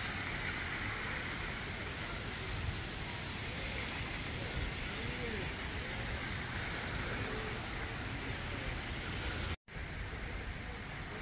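Steady outdoor hiss with faint, distant voices calling now and then. The sound cuts out briefly about nine and a half seconds in, then comes back quieter.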